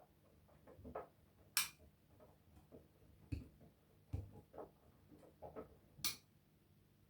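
Faint, irregular light clicks and soft knocks, about a dozen, two of them sharper than the rest (one near the start, one near the end), over a faint steady low hum.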